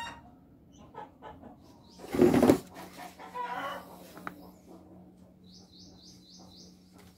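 Gloved hands handling a rusty metal wire cutter: a few light clicks, then a loud brief rustling scrape about two seconds in and more rustling after it. A low steady hum runs underneath, and a bird chirps five quick times near the end.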